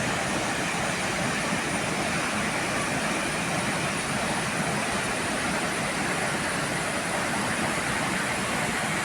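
Athirappilly Falls: a steady rush of falling water, an even roar with no break or change.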